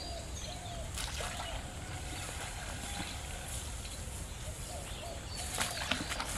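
Birds calling again and again in short arched calls over a steady low rumble, with a few higher chirps. Near the end comes a cluster of short clicks and a light splash in the water.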